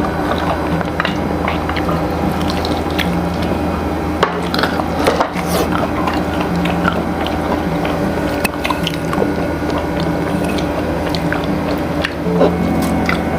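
Close-up eating sounds: crispy fried chicken crunching and being chewed, with many small clicks and crackles, over steady background music.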